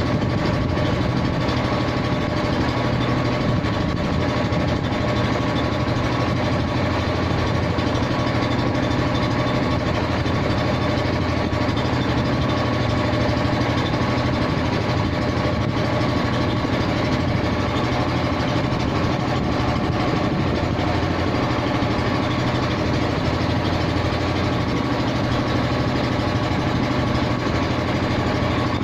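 A vehicle engine running steadily at a constant pitch.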